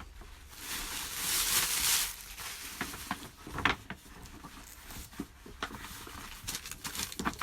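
Packaging being handled and unwrapped: a burst of rustling and crinkling in the first couple of seconds, then scattered light handling clicks and rustles.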